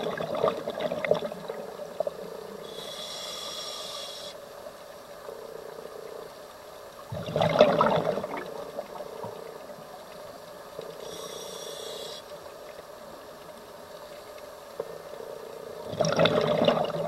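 Scuba diver breathing through a regulator, heard underwater: a hissing inhalation about three seconds in and again about eleven seconds in, each followed by a loud rush of exhaled bubbles, about seven seconds in and near the end.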